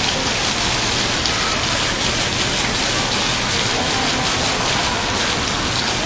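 Water falling and splashing steadily in a fountain, an even rain-like splashing with no breaks.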